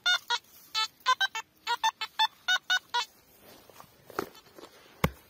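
Metal detector giving a run of short, high-pitched target beeps as the coil is swept over a buried target; the beeps stop about three seconds in. Near the end comes one sharp strike of a digging tool into hard, dry ground.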